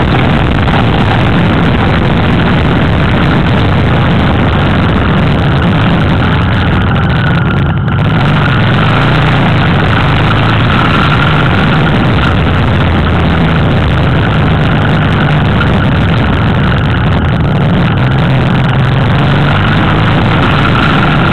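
Motorcycle riding at speed, heard from on board: its engine running steadily under heavy wind rush over the microphone, with a brief dip about eight seconds in.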